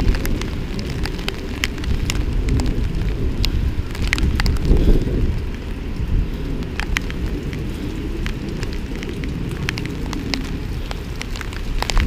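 Hard rain falling, with scattered raindrops tapping sharply close to the microphone over a low steady rumble.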